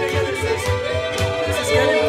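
Live fiddle playing a dance tune, with held and sliding notes over a steady low beat of about four a second.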